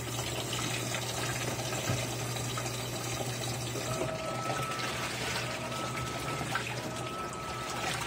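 Electrolux LAI17 17 kg top-load washing machine in its rinse stage: water running and sloshing in the tub of wet towels over a steady low hum.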